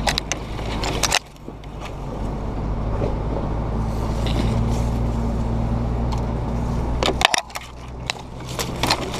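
Off-road 4x4's engine running steadily as it drives a rough dirt trail, with sharp knocks and rattles about a second in and again near the end, and branches brushing and scraping along the vehicle's side near the end.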